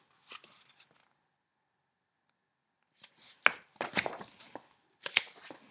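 Paper pages of a picture book being handled and turned: a few soft rustles at the start, then after about two seconds of quiet a run of sharp paper flicks and taps.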